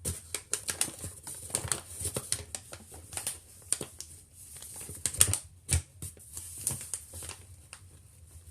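Irregular clicks and taps of kitchen utensils and containers being handled, with a few sharper knocks partway through.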